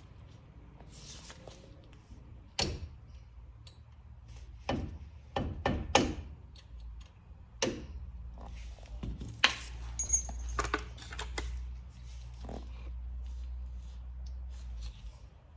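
Mallet striking a drill bit used as a punch to drive a retaining pin out of a four-piston Brembo brake caliper: a series of irregularly spaced sharp metallic taps, some with a brief ring, among smaller clinks of metal.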